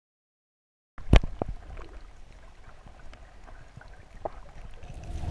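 Underwater ambience over a coral reef heard through a camera: a steady low water rumble with a few sharp clicks, the loudest about a second in.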